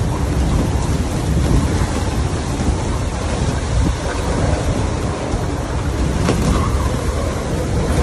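Downburst wind storm of about 220 km/h blasting over a boat at anchor: heavy wind buffeting on the microphone mixed with the rush of wind-whipped sea and spray. A continuous, dense low rumble with no letup.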